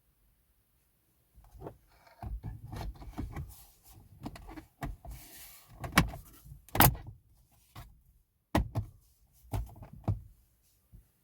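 Irregular clicks and knocks, like parts and tools being handled, loudest at two sharp knocks about six and seven seconds in.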